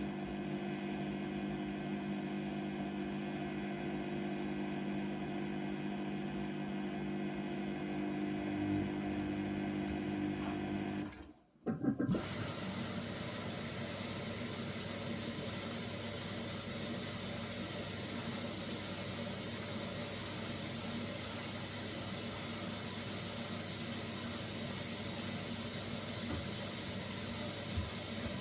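Hoover Nextra 6 washing machine running: a steady motor hum with several steady tones, which breaks off sharply about eleven seconds in and gives way to a steady, even hiss.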